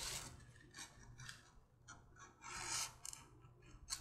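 Edge beveler shaving the edge of a leather holster piece: several short, faint scraping strokes as the blade peels a curl off the corner.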